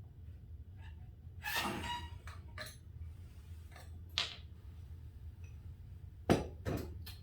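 Fork tube and cap parts being handled while reassembling a motorcycle front fork against its preloaded spring: scattered clinks, with a sharp metal knock about six seconds in followed by two lighter ones, over a steady low hum.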